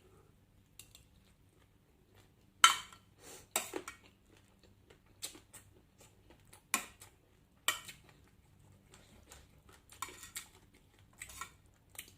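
Scattered sharp clinks and taps of eating utensils against dishes during a meal. There are about eight or ten separate clinks, and the loudest comes nearly three seconds in.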